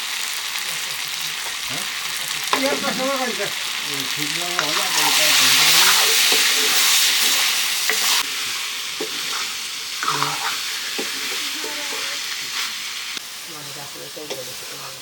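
Food frying and sizzling in hot oil in a pan while being stirred. The sizzle swells louder for a few seconds in the middle, then drops back abruptly about eight seconds in.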